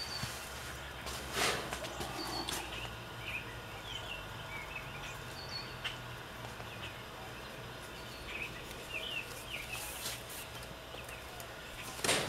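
Small birds chirping in short, scattered calls, with a brief rustle about a second in and a louder rustle of a paper seed packet near the end, over a steady low hum.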